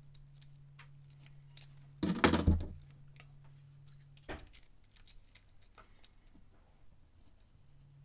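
Faint scattered clicks and scrapes of a steel pick and tension wrench working the pins of a small five-pin brass padlock. About two seconds in comes a loud, brief metallic rattle of the picking tools as one pick is swapped for another, followed by a single sharp click.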